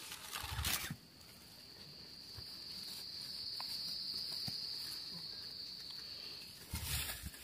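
An insect's steady high-pitched buzz sets in about a second in, swells, then fades out near the end. Before and after it, soil and leaf litter are scratched and rustled by a hand and a small digging tool.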